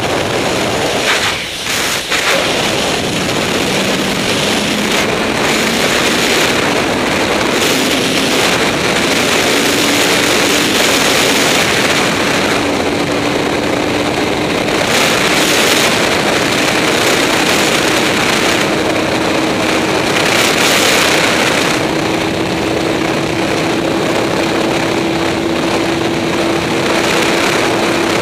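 Honda CBR954RR's inline-four engine pulling at highway speed, its note rising slowly and steadily as the bike gains speed, under a loud rush of wind over the rider-mounted camera that swells and eases in gusts.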